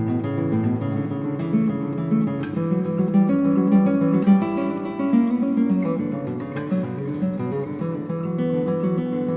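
Background music played on acoustic guitar, plucked and strummed.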